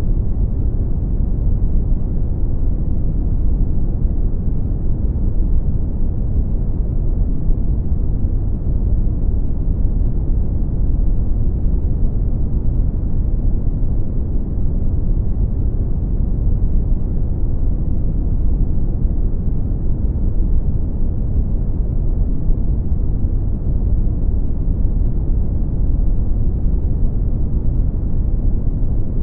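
Brown noise: a steady, deep rushing hiss with most of its weight in the low end and little treble, unchanging throughout.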